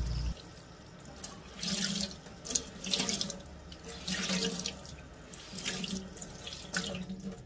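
Tap water running over a wet tie-dyed cotton T-shirt as it is squeezed and kneaded in a sink, splashing in repeated surges. It is the first rinse, washing the excess unfixed dye out of the fabric.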